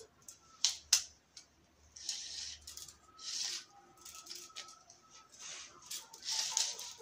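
Handling noise: two sharp clicks about a second in, then several short rustling sounds.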